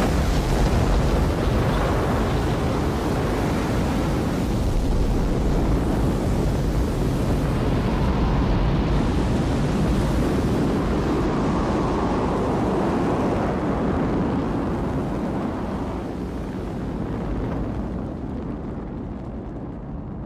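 Space Shuttle launch: the main engines and solid rocket boosters ignite and give a loud, continuous deep rumble as the shuttle lifts off, easing off gradually over the last few seconds.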